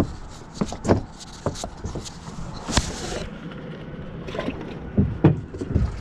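Scattered knocks and thumps of gear and footsteps on a small fishing boat's deck, the loudest few near the end.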